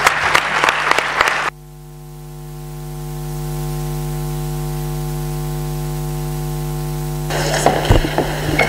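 Audience applause that cuts off suddenly about a second and a half in. A steady electrical hum of several tones follows, swelling and then holding level, until noisy clatter returns near the end.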